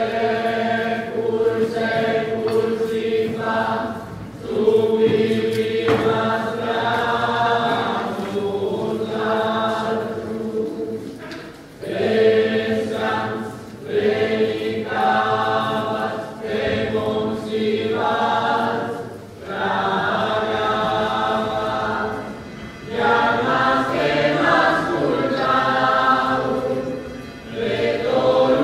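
Choir singing a communion hymn in sung phrases a few seconds long, with brief pauses between them.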